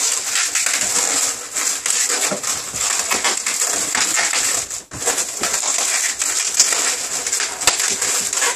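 Latex modelling balloons, a clear 260 and black balloons, being twisted and wrapped around each other by hand: a continuous scratchy rubbing of latex on latex, with a short pause about halfway through.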